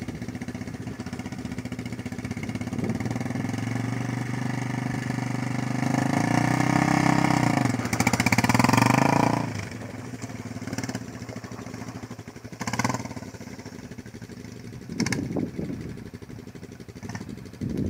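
Quad bike (ATV) engine running, revving harder with rising pitch about six seconds in, then dropping off and fading as the quad moves away, with a few short knocks near the end.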